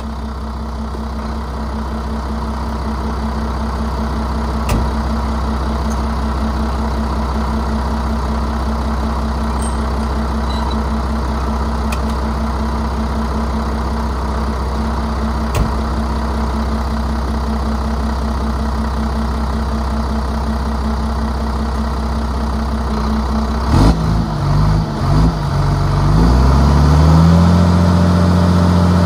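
Ford medium-duty dump truck's engine idling steadily. About 24 seconds in, its note breaks up for a moment, then settles at a higher, steady engine speed to the end.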